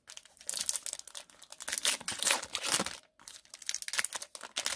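Foil wrapper of an Upper Deck hockey card pack being torn open and crinkled by hand: a dense crackling of the foil, with a brief pause about three seconds in.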